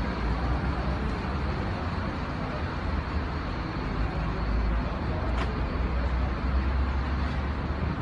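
Steady road noise of vehicles driving close by, a low engine rumble under tyre hiss, with a single sharp click about five and a half seconds in.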